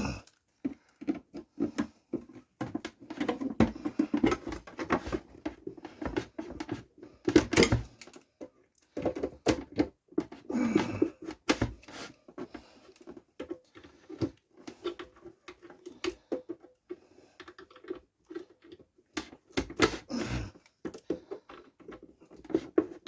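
Irregular tapping, knocking and scraping of a tool against the plastic hinge of a JFJ Easy Pro disc repair machine as its lid hinge pins are knocked out. The loudest knock comes about seven seconds in.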